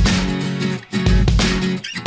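Background music with a strong, pulsing bass line.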